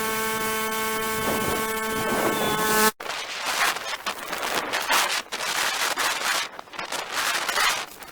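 A small engine running at a steady speed, cut off abruptly about three seconds in. After that come irregular scraping and rustling sounds.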